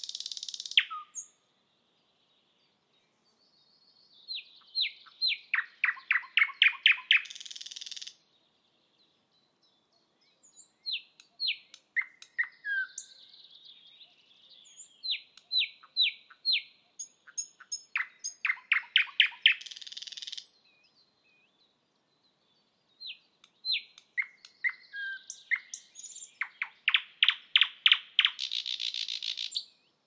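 Thrush nightingale singing. It gives loud phrases of rapid repeated notes, each ending in a harsh rattling burst, with pauses of a few seconds between phrases. Three full phrases are heard, and one phrase ends just at the start.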